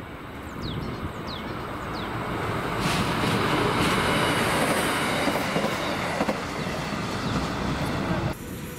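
Two-car diesel railcar passing close by over a level crossing, its engine and wheels rumbling with some clatter over the rails. It builds to full loudness about three seconds in and cuts off suddenly near the end.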